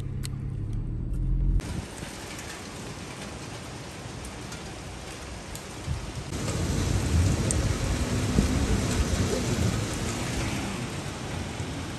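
Heavy rain pouring down, a steady hiss that swells louder about six seconds in with a low rumble underneath; a low hum is heard for the first second and a half before it.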